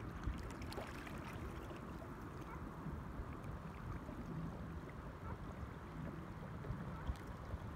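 River water lapping and trickling against a kayak's hull, over a low steady rumble, with a few faint ticks.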